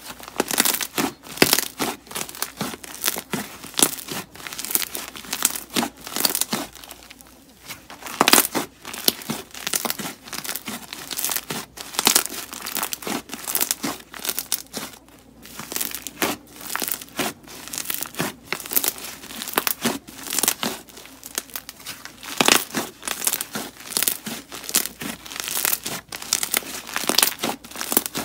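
Slime being stretched, squeezed and kneaded by hand, giving off a dense run of sticky crackles and small pops as trapped air breaks out of it.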